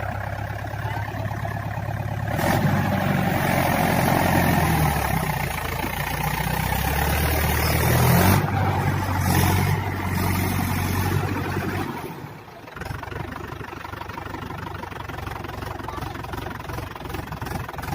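Mahindra tractor's diesel engine running, its note swelling and easing, with a short drop in level about two-thirds of the way through.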